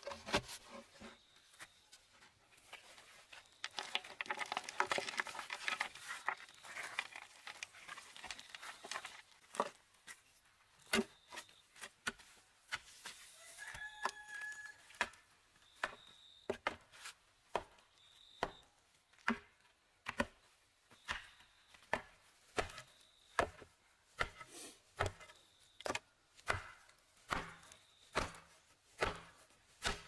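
Earth being packed around a newly set bamboo fence post with a wooden tamping pole: repeated dull knocks, a little more than one a second, from about a third of the way in. Before the knocks, loose soil crunches and rustles.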